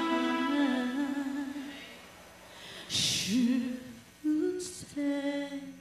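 A woman singing into a microphone through the PA in short phrases with sliding notes, the band's backing mostly dropped out; the sound dips to quiet about two seconds in before she sings again.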